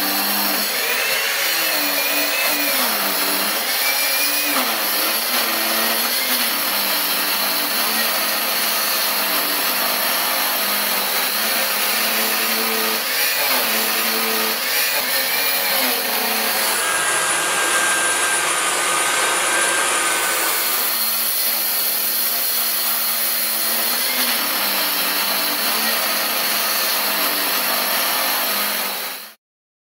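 CARDI PIRANHA 125 wall chaser with twin 125 mm diamond blades cutting a groove in solid brick: a loud, steady grinding hiss with a high motor whine, cutting off suddenly near the end.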